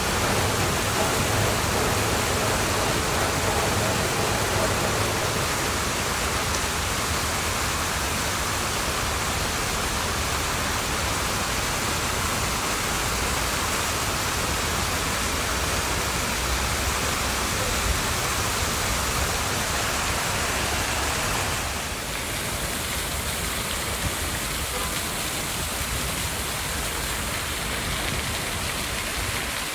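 Fountain jets splashing into a pool: a steady rushing hiss of falling water, a little quieter from about 22 seconds in.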